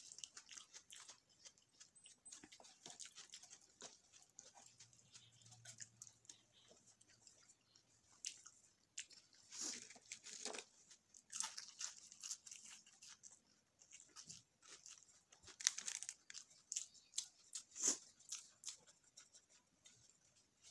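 Close-up eating sounds: chewing with irregular crisp crunches from bites of fried cauliflower and potato pakoras. The crunching comes thickest in the middle and again a few seconds before the end.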